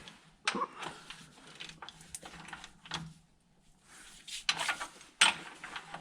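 Tools and parts being handled on a garage bench: irregular knocks and clatter, the sharpest about half a second in and about five seconds in, over a faint steady hum.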